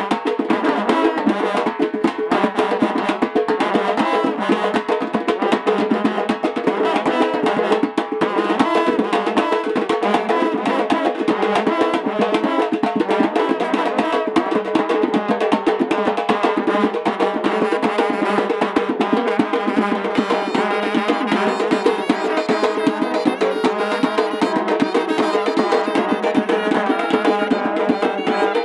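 A karnay-and-drum wedding band playing. Long brass karnay horns hold a steady drone, large double-headed drums beat a fast, dense rhythm, and a clarinet carries the melody over them.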